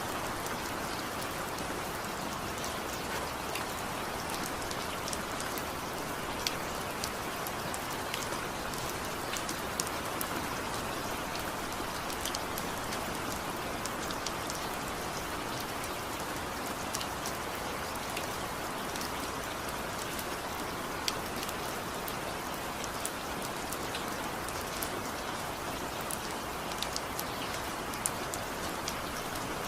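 Steady rain falling, an even hiss with scattered sharp drip and drop taps on a surface.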